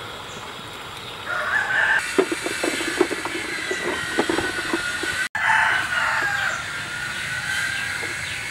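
Chickens clucking in quick short calls, then a rooster crowing in one long call about halfway through.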